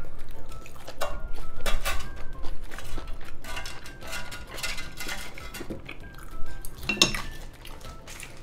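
Wooden chopsticks scraping and clicking on the coated plate of an electric grill, picking at leftover bits in a string of short scrapes and taps.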